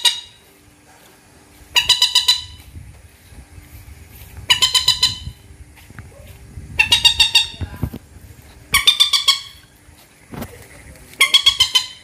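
Common moorhen calling: a harsh, quick run of clipped notes lasting about half a second, repeated five times at roughly two-second intervals.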